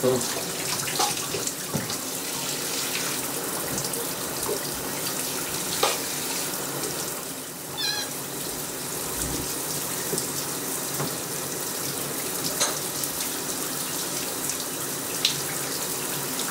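Shower spray running steadily, with scattered splashes and a brief high squeak about eight seconds in.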